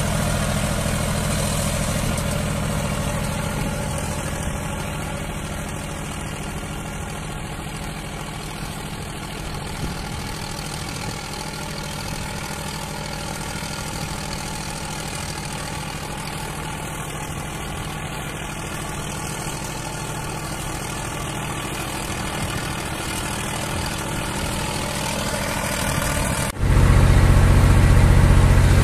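Zetor 5011 tractor's three-cylinder diesel engine running steadily under load, pulling a two-furrow plough, growing fainter as the tractor draws away. About 26 seconds in, the engine jumps suddenly to much louder, heard close up from on the tractor.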